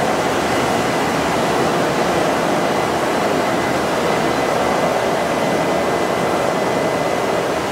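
Steady industrial machinery noise from a robotic board-feeding line: a continuous even rush with a faint steady high whine, unchanging while the robot moves the board.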